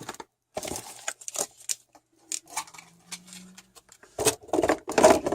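Handling noise of protective gear being fitted: scattered small clicks and rustles of plastic and straps, growing denser and louder near the end.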